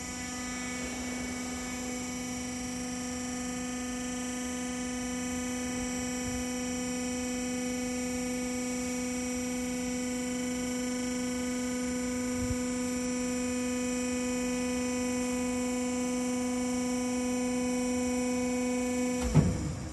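Hydraulic lift of a vacuum planetary mixer running to lower the mixing head and lid onto the tank: a steady electric pump hum with a constant pitch, growing slightly louder, that cuts off suddenly near the end as the lid seats.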